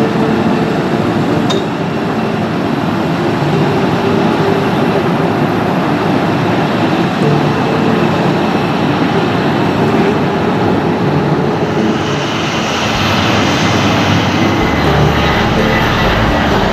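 Boeing 737-800 jets' CFM56 turbofan engines running loudly on the runway. About twelve seconds in, a higher hiss comes up as a closer jet taxis.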